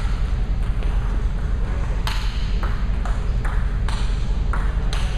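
Table tennis ball clicking off paddles and the table, a hit about every half second from about two seconds in, over a steady low rumble.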